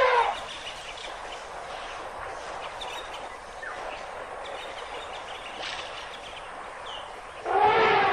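Elephant trumpeting: one call ending right at the start and another loud call starting near the end, with a steady outdoor hiss in between.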